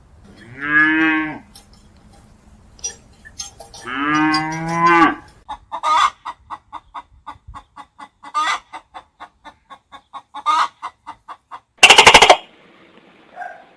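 A cow mooing twice, each a drawn-out call of about a second, followed by chickens clucking in a quick run of short clucks with a few louder calls among them. A loud, harsh burst comes near the end.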